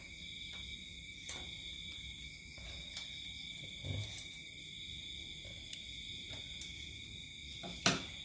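Small clicks and taps of plastic parts and cable connectors being handled on an embroidery machine's display panel, with one sharper click near the end. A steady, high-pitched electronic whine sits underneath.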